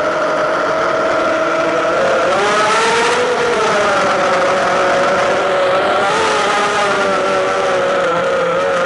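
Drone's motors and propellers running steadily, a whine of several tones that rises in pitch about two seconds in and again briefly around six seconds as the throttle changes, with a rush of air at the first rise.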